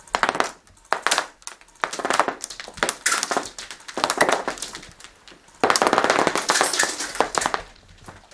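Airsoft guns firing on full auto in about five rapid bursts of snapping shots, the longest lasting about two seconds near the end.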